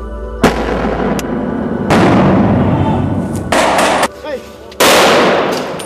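Military weapons fire: a sharp shot about half a second in, then three loud blasts about a second and a half apart, each dying away slowly. A brief shout comes between the last two blasts.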